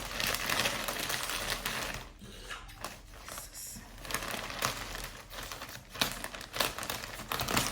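Plastic packaging crinkling and rustling as a parcel is unwrapped by hand, going quieter about two seconds in and then picking up again with sharper crackles.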